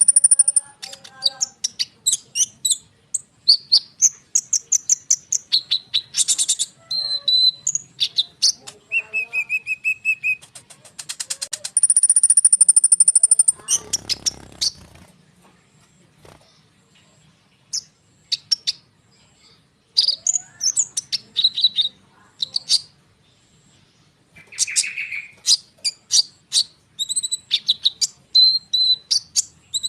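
Konin songbird singing a rapid, dense, varied song of high trills, whistles and chattering phrases, the full continuous song kept as a lure to set other birds singing. About halfway the song breaks off with a brief rustling noise, and after a few quieter seconds it starts again.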